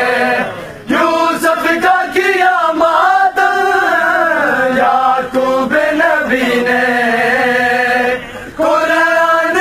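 Men's voices chanting a noha, a Muharram lament, in long drawn-out phrases, with two brief breaks between lines.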